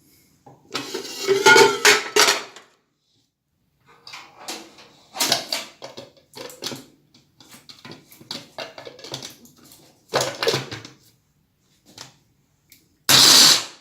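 Electric grinder chopping steamed dried figs, run in pulses: a loud burst of about two seconds near the start, shorter, quieter bursts and knocks through the middle, and a very loud burst near the end.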